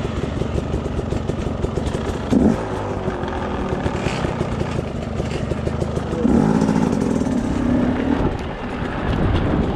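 Enduro dirt bike engine running on a rough trail, revving up in short surges about two and a half seconds in and again for a couple of seconds from about six seconds in.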